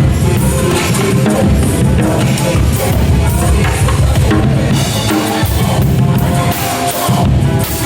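Drum kit played along with a backing music track, with steady bass drum and snare strokes over the melody.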